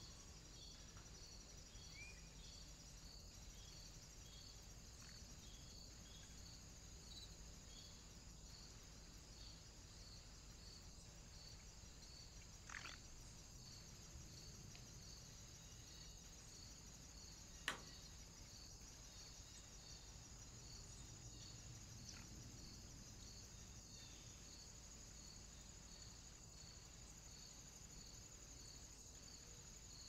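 Near silence: faint hiss with a steady high-pitched chirp repeating evenly about once or twice a second, insect-like. One sharp click about two-thirds of the way in.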